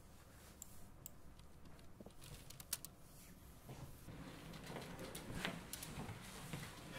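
Scattered faint clicks of a computer mouse and keyboard over quiet room tone, growing a little louder and busier toward the end.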